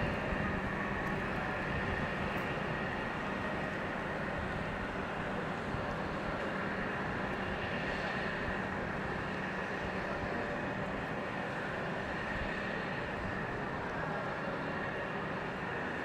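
Marine diesel engines of a tugboat and the cargo ship it is handling, running steadily as one constant drone with a faint high whine over it, mixed with churning water.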